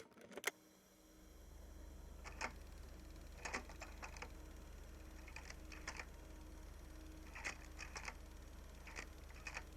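Light clicks in irregular clusters of two to four, a second or so apart, like typing, over a low steady hum.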